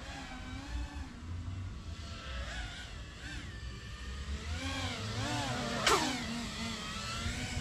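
Sub-250-gram FPV quadcopter's motors and propellers whining, the pitch rising and falling as the throttle is worked. A sharp swoop in pitch about six seconds in is the loudest moment.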